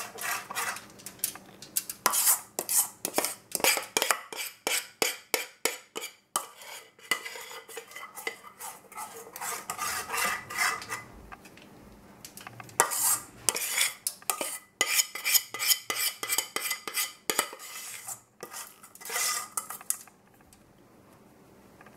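Metal spoon scraping and clinking against the inside of a stainless steel saucepan, scooping cake batter out of it. The strokes come fast and repeated, in runs with short pauses, and stop about two seconds before the end.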